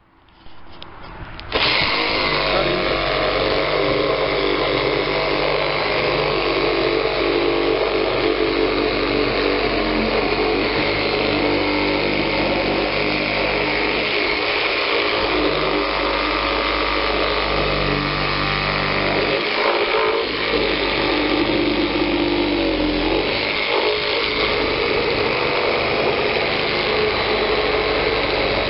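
Kobalt one-handed reciprocating saw running steadily as its blade cuts around the top of a blue plastic 55-gallon drum. It starts about a second and a half in and keeps going, with only brief dips in the cutting noise.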